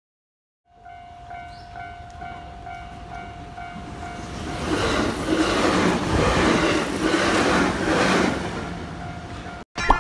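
A level crossing warning bell rings with a steady repeating tone. From about five seconds in, a JR West 221 series electric train runs past over the crossing and its wheels on the rails drown the bell. The bell is heard again faintly as the train clears, and the sound cuts off just before the end.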